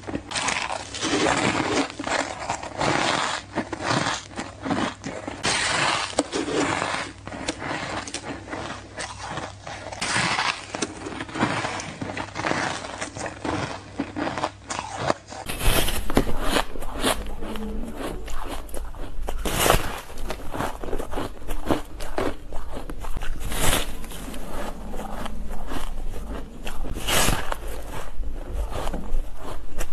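Soft, snowy ice being bitten and chewed close to the microphone, a dense run of crunching. About halfway through the recording changes and the bites come out sharper and more separate, a few seconds apart.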